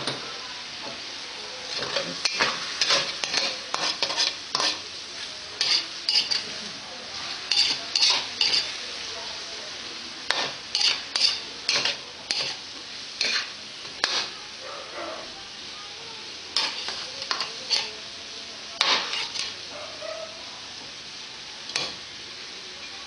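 Chicken pieces sizzling in a steel wok as a metal spatula stirs and scrapes them, clattering against the pan in runs of quick strokes over a steady frying hiss. The strokes thin out near the end.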